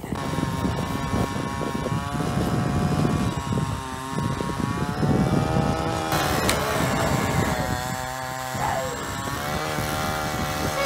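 Small gas engine running, its pitch rising and falling unevenly.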